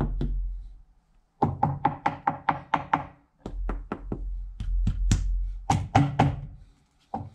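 Knuckles knocking on a plastic sewer riser pipe wrapped in StP Master foil-faced vibration-damping sheet, showing how the wrapping changes the pipe's sound. The knocks come in quick runs of about five or six a second, with short pauses between runs, and one last single knock near the end.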